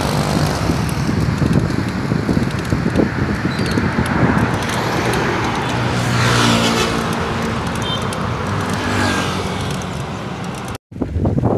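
Road traffic noise heard from a moving bicycle, with wind rumbling on the phone's microphone. A motor vehicle engine hums steadily as it passes about halfway through. The sound cuts off suddenly near the end.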